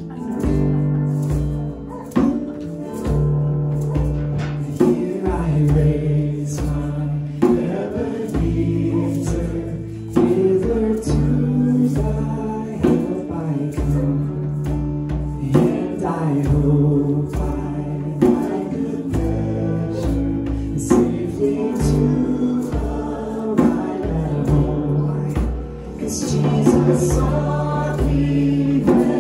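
Acoustic worship song: voices singing together, led over an acoustic guitar.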